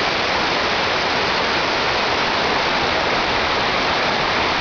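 Waterfall rushing: a loud, steady, even wash of falling water.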